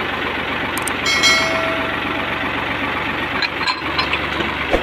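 Al Ghazi NH-640 tractor's diesel engine idling steadily close by. About a second in comes one sharp metal clank that rings briefly, then a few lighter metal clicks near the end as the trolley's hitch is handled.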